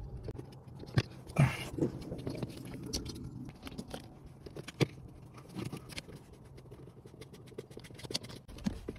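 Scattered light clicks, taps and rustling of plastic as a hand fits a blower motor resistor into its mount under a pickup's dashboard, with a few sharper clicks among them.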